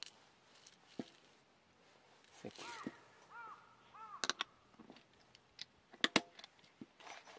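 Sharp clicks and rattles of coffee beans being tipped into a hand coffee grinder, the loudest a pair of clicks about six seconds in. About halfway through, three harsh bird calls in a row, crow-like caws.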